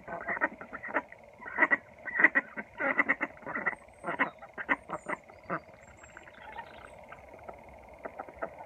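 A small flock of Indian Runner and Khaki Campbell ducks quacking in quick, short calls, busiest over the first six seconds and thinning out after.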